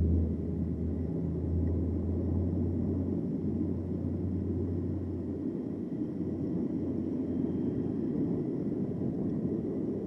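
Riding noise from an e-bike on the move: a steady low rumble of wind and tyres on the road, with a deep hum that fades out about halfway through.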